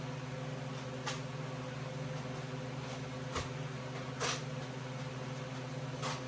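A steady low hum with a few faint clicks, about one, three and a half and four seconds in.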